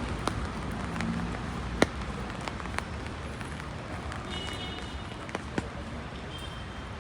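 Steady rain falling on a city street, with scattered sharp taps of drops or footsteps, the loudest about two seconds in.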